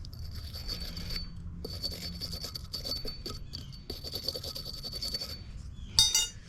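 Wire brush scrubbing copper plumbing fittings clean for soldering: a steady scratchy scraping with a thin high whine for about five seconds, then a sharp metallic clink that rings briefly near the end.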